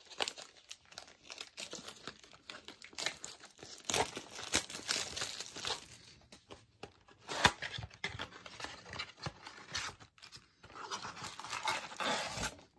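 A cardboard trading-card box being torn open by hand: its wrapper crinkling and tearing in irregular stretches, with sharp clicks, one loud snap about halfway through.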